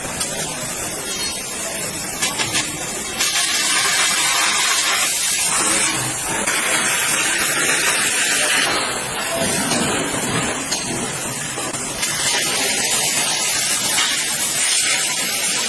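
Laser cutting machine running, with a steady, loud hiss of assist gas blowing through the cut in the steel. The hiss steps up about three seconds in and shifts again a few times as cuts change.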